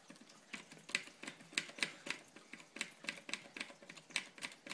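Rapid, irregular small clicks of a hand tool turning a screw out of an RC car's chassis, about three to four clicks a second, starting about half a second in.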